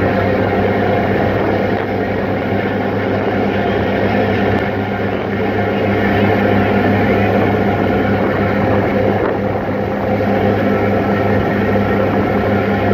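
Passenger ferry under way: a steady engine drone with a low hum, mixed with rushing wind and water noise on the open deck.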